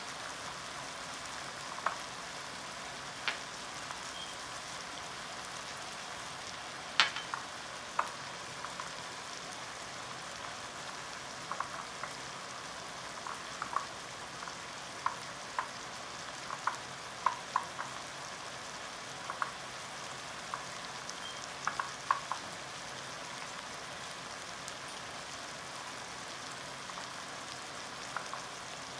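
Chicken frying in oil in a pan: a steady sizzle with scattered pops and crackles.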